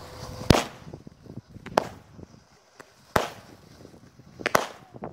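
A lit consumer firework going off on the ground with a series of sharp bangs: four loud reports roughly a second and a half apart, with smaller pops in between.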